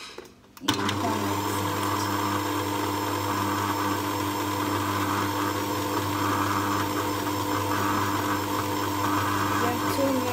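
Electric stand mixer switched on, its motor starting about a second in and then running with an even, steady hum.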